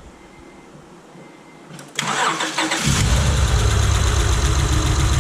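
The Acura TL's 3.2-litre V6 cranks briefly about two seconds in, catches and settles into a steady, heavy idle. It is running with a dead miss on one cylinder.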